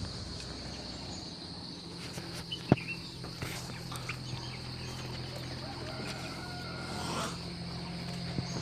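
Chickens feeding: scattered sharp pecking clicks, one sharper than the rest about three seconds in, and a few faint short chirps, over a steady high drone of insects and a low steady hum.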